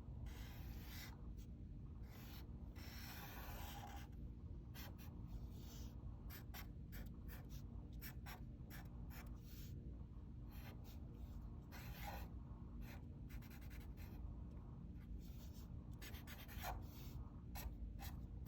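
Sharpie marker drawing on paper: a series of short, faint, irregular strokes of the felt tip rubbing across the sheet, over a low steady hum.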